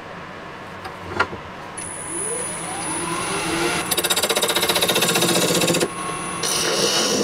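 A wood lathe starting up, its motor whine rising as it comes up to speed, after a sharp knock; then a turning tool cutting the spinning elm burl and epoxy resin blank with a loud, fast, even chatter that stops briefly near the end and starts again.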